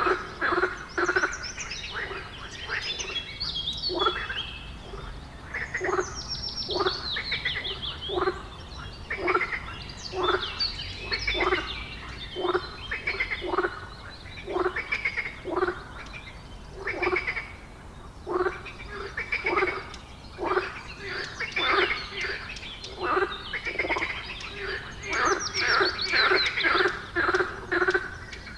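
A chorus of short, croaking animal calls, about two a second, with high whistled calls falling in pitch about six seconds in and again near the end.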